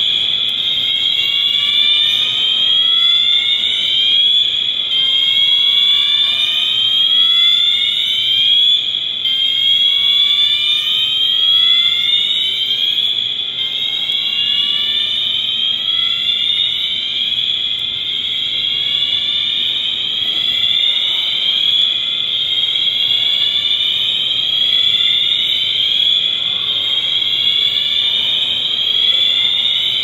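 Shopping-mall fire alarm system sounding: an electronic tone that sweeps upward in pitch over and over, with several sweeps overlapping out of step.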